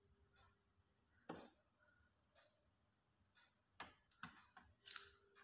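Near silence, broken by a few faint clicks and knocks from hands handling the TV's metal back chassis, with a short rustle near the end.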